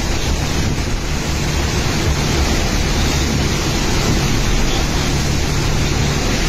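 Steady noise of a rainstorm: heavy rain with wind buffeting the microphone, even throughout with no distinct events.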